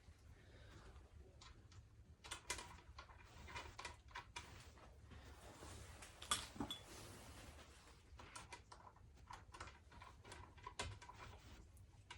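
Faint clicks, taps and light rattles of e-bike handlebar parts and tools being handled while the handlebars are fitted, with a sharper knock about halfway through.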